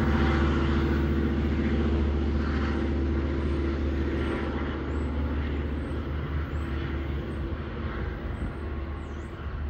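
Diesel locomotive engine running at a steady pitch, fading gradually as the train moves away.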